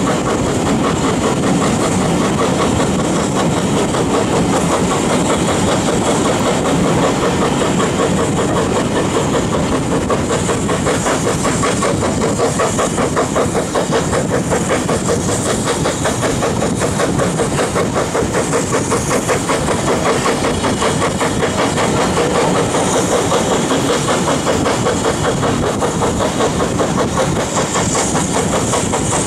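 BR Standard Class 4MT 4-6-0 two-cylinder steam locomotive No. 75029 'The Green Knight' running at the head of its train, heard from a coach behind, its exhaust beats and the coaches' wheels on the rails making a steady fast rhythm with a hiss over it.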